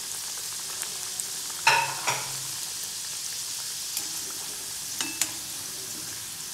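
Maida pastry deep-frying in hot oil in a kadai, a steady sizzle throughout. The metal slotted spoon knocks against the pan a few times, loudest twice about two seconds in and more lightly just after five seconds.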